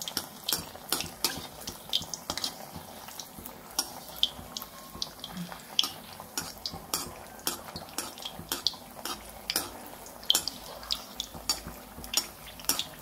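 A neyyappam frying in hot oil in a deep kadai, sizzling and crackling. A perforated metal skimmer clinks and scrapes against the pan as hot oil is spooned over the top. Irregular sharp clicks, several a second, sound over the steady sizzle.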